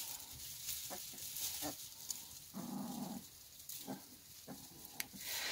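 Ten-day-old Akita Inu puppies in the nest making faint little grunts and squeaks, with one longer, lower whimper a little past halfway.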